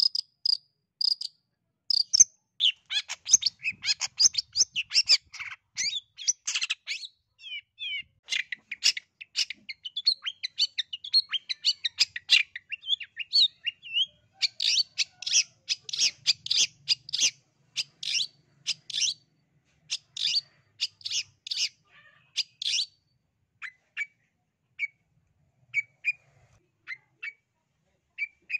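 Long-tailed shrike (cendet) singing. A few separate sharp notes open into a long, fast run of chattering high notes, which thins to scattered single notes in the last few seconds.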